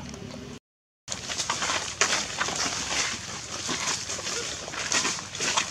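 Dry fallen leaves crackling and rustling under footsteps, an irregular run of crisp scuffs and crunches. It starts after a brief dead-silent gap near the start; before the gap, only a steady low hum.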